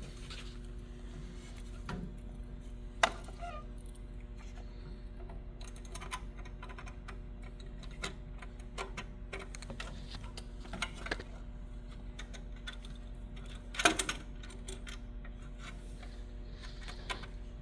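Scattered small clicks and taps of hand tools and screws on a motor control center's disconnect handle mechanism as it is reassembled, with one sharper click about three seconds in and a quick cluster of clicks near fourteen seconds. A steady low hum runs underneath.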